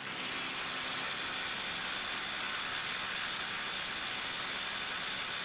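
Kobalt XTR 24-volt brushless 1/4-inch hex impact driver hammering steadily on a bolt, a continuous rapid rattle of impacts at a constant level, as it torques the fastener tight.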